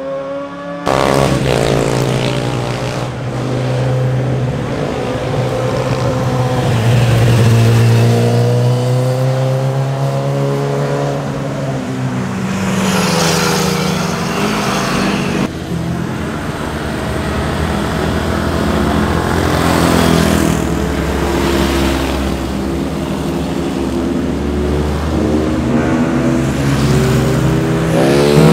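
Sport motorcycle engines passing one after another through a corner, revving up and down so the pitch rises and falls. The sound changes abruptly about a second in and again about halfway through.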